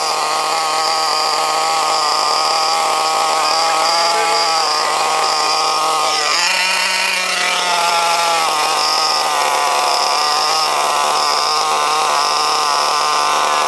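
Small nitro two-stroke engine of a Hobao Hyper ST RC truggy running steadily just after starting, its pitch shifting briefly about halfway through. The engine had a fuel pressure problem that made it run lean.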